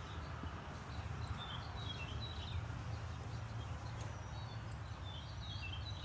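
Songbirds chirping in quick, short notes, twice in little clusters, over a steady low hum.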